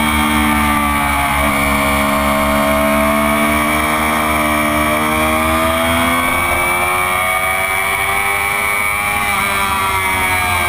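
Honda CBR600RR's inline-four engine at track speed, heard from the rider's seat. Its pitch dips briefly about a second and a half in, then climbs steadily as it pulls out of the corner and down the straight, and the revs fall near the end. A steady rush of wind runs underneath.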